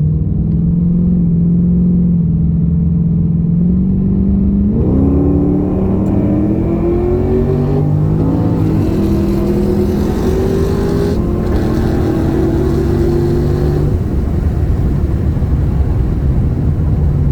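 Holden VX Commodore SS's 5.7-litre LS1 V8, with an aftermarket exhaust and intake, pulling hard from a roll start. It holds steady for about five seconds, then revs climb, with two gear changes, before the driver lifts off near the end.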